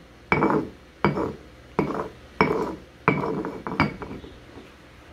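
Stone pestle scraped around a volcanic-stone molcajete in about six rhythmic strokes, roughly one every two-thirds of a second, stone grating on stone through a little water as ground spices are gathered up. The strokes stop about four seconds in.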